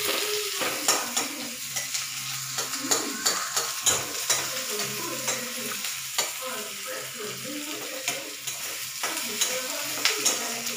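Onion pieces frying in hot oil in a black kadai, sizzling steadily while a steel spatula stirs them, its edge clicking and scraping against the pan many times.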